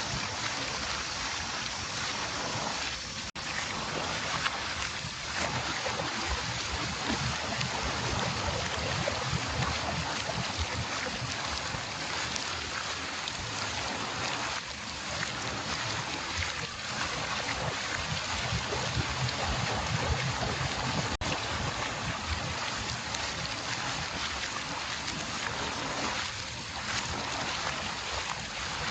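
Water mill wheel turning, with water rushing and splashing off it in a steady wash over a low rumble. The sound cuts out for an instant twice.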